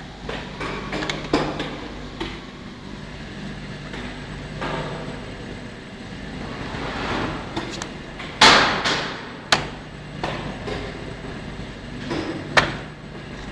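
Industrial machinery running with a steady low hum under scattered metallic knocks and clanks. The loudest clank comes about eight and a half seconds in, with two sharper knocks about a second and four seconds after it.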